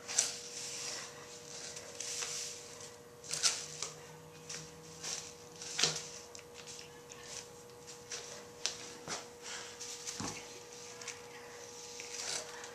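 Push broom bristles swishing over a concrete floor in short, irregular strokes, with a few sharp taps and scuffs.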